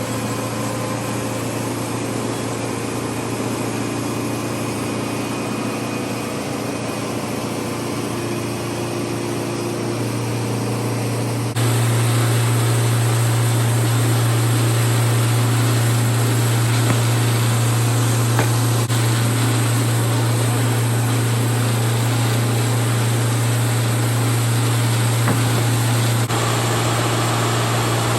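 Sawmill machinery running steadily with a strong low hum and a rushing mechanical noise. It gets abruptly louder about a third of the way in.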